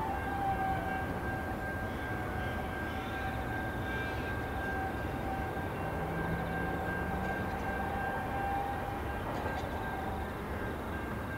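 EL-class diesel-electric locomotives running slowly with a heavy rail train, a steady low rumble under a steady high-pitched squeal.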